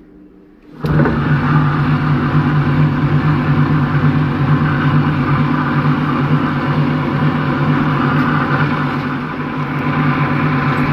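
Electric water pump motor switched on about a second in, then running steadily and driving a car alternator by a V-belt: a steady mechanical hum and whir.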